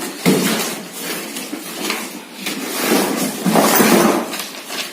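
Irregular rustling and knocking handling noises, as when packaging or paper is handled.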